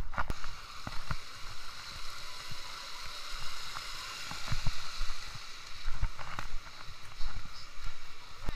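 Shallow muddy river rushing over rocks, a steady hiss, with scattered low thuds of footsteps.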